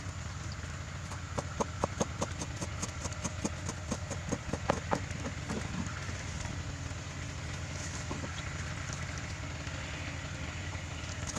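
Kitchen knife striking a wooden cutting board while vegetables are chopped: a run of sharp knocks, thickest in the first half, with a few more later. A steady low rumble runs underneath.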